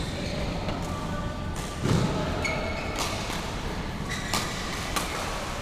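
Badminton court sounds: sharp racket-on-shuttlecock clicks a few times and brief squeaks of court shoes on the floor, with a heavy thud about two seconds in, over the steady hubbub of a busy hall.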